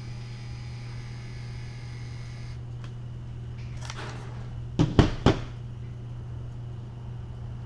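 Handheld label maker printing with a faint high whine that stops about two and a half seconds in. A short rustle follows, then three sharp clacks in quick succession, the loudest sounds here, over a steady low hum.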